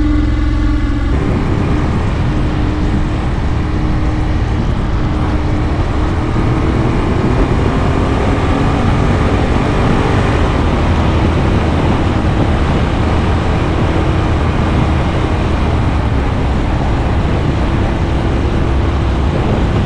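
Steady wind rush over a motorcycle-mounted camera's microphone at cruising speed, with the Ducati Monster R's V-twin engine running beneath it, its pitch drifting slightly.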